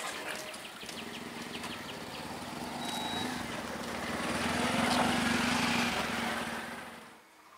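Electric multiple-unit suburban train approaching, a steady rolling rumble with a low hum. There are rapid clicks in the first couple of seconds. The noise grows to its loudest about five seconds in, then drops away sharply near the end.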